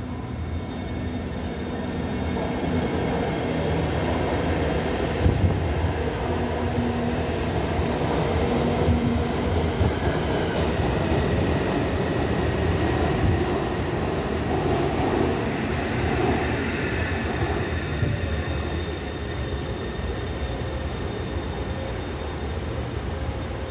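Taipei Metro C301 electric multiple-unit train pulling into an elevated station. The rumble of its wheels and motors grows over the first few seconds, holds as the cars run past the platform, and eases a little near the end as it slows to a stop. A thin steady whine rides over the rumble.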